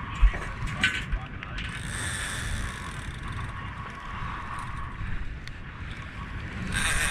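Big-game lever-drag fishing reel working under load from a hooked marlin, a steady mechanical whirr with a few sharp knocks in the first second and a half. Wind buffets the microphone.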